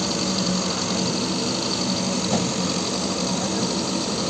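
Diesel engine of a JCB earthmover running steadily.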